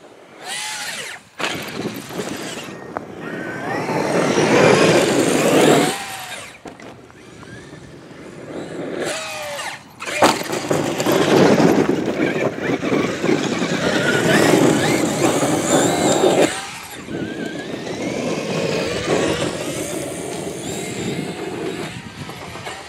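Electric radio-controlled truck's motor whining, its pitch rising and falling with the throttle. It runs in several bursts with sudden breaks between them.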